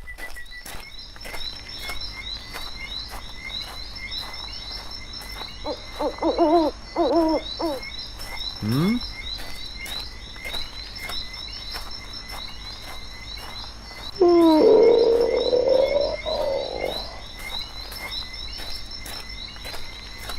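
Night-time animal ambience: a steady high chirping chorus with regular clicks, a few short pitched calls about six seconds in, and a louder drawn-out call lasting about three seconds from around fourteen seconds in.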